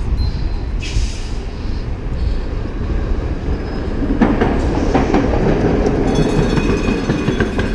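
Vintage electric streetcar passing close by: its steel wheels clank on the rails about four and five seconds in, then a high squeal of wheels on track comes in near the end. Underneath is a steady low rumble of wind on the microphone.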